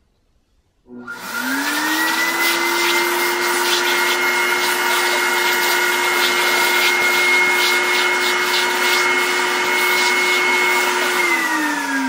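The onboard vacuum motor of a Desiderio Plus commercial steamer switching on about a second in, its whine rising quickly to a steady pitch as the crevice tool draws along the carpet edge at the baseboard. Near the end the pitch falls as the motor starts to spin down.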